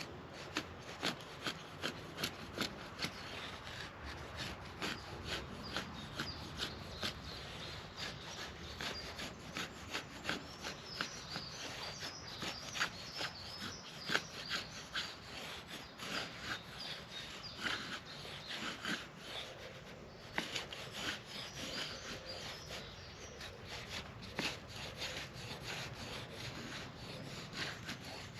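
Gerber Freeman folding knife blade shaving curls off a stick of wood, carving a feather stick: quick repeated scraping strokes, about two a second at first, then closer together.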